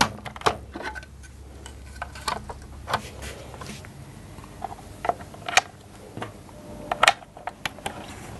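Scattered light clicks and knocks of the plastic cleaner-head casing and parts of a Dyson DC25 vacuum being handled and fitted back together, with a sharper pair of knocks about seven seconds in.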